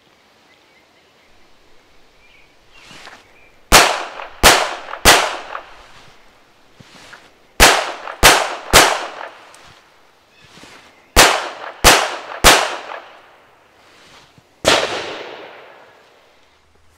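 Canik TTI Combat 9mm pistol firing failure drills: three strings of three quick shots, each two to the body and one to the head, with a few seconds between strings. One more shot comes near the end. Each shot is sharp with a short echoing tail.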